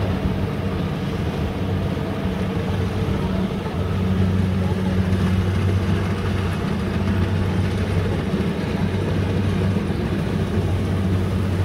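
Rice combine harvester's diesel engine running steadily under a constant hum and mechanical noise.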